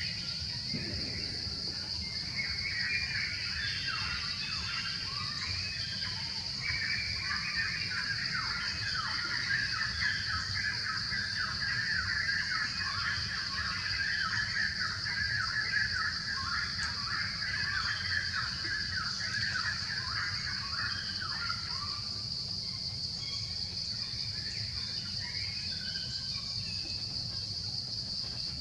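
Forest ambience: a steady, high insect drone runs throughout. Over it, a dense run of rapid chirping calls starts about two seconds in and stops about 22 seconds in. A low rumble sits underneath.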